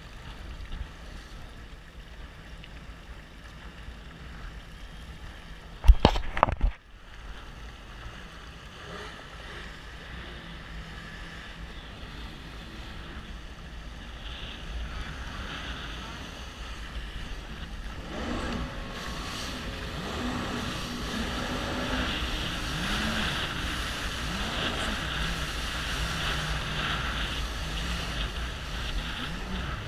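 Jet ski engine running with water rushing past the hull, and a brief loud knock about six seconds in. In the second half it grows louder, the engine note rising and falling with the throttle as the craft speeds over the water.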